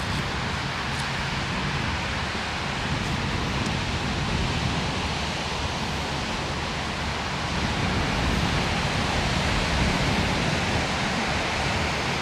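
Small waves washing onto a sand beach, a steady surf hiss, with wind rumbling on the microphone.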